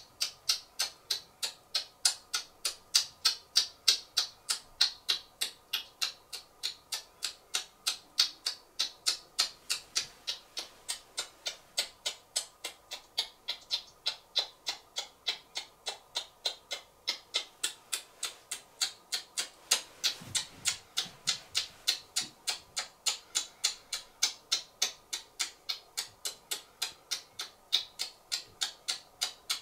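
Typewriter keys clicking at an even pace, about three strokes a second, as the poem's text is typed out.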